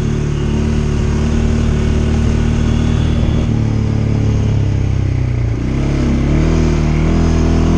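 CFMoto CForce 550 ATV's single-cylinder engine running under throttle, heard from the rider's seat. About two-thirds of the way through, the engine speed drops briefly and then climbs again.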